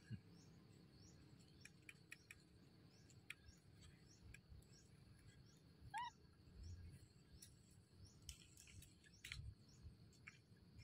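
Near silence: faint outdoor ambience with scattered small clicks and one short rising chirp about six seconds in.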